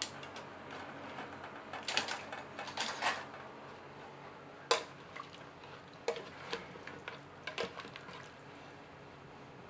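Kitchen utensils clinking and scraping in the metal inner pot of an electric pressure cooker as braised pork is seasoned with salt and stirred with a ladle. There are a series of separate sharp clinks, the loudest about two to three seconds in and again near the middle.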